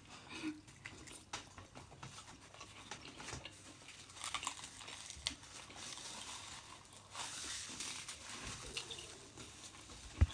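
Close-up eating and food-handling noises: irregular rustling and crinkling with many small clicks, as fried chicken and fries are handled and eaten, and a couple of sharper knocks near the end.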